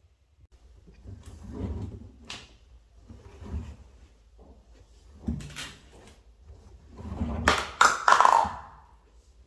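Washed bedsheets and towels being pulled by hand out of a front-loading washing machine's drum: irregular bursts of fabric rustling and soft knocks, loudest about eight seconds in with a couple of sharp clicks.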